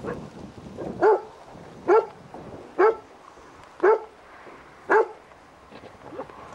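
A dog barking five times, about once a second.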